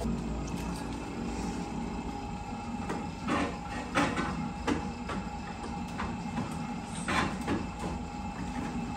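A new refrigerator's ice dispenser running: a steady motor hum with several sharp knocks of ice cubes dropping, a few seconds in and again near the end.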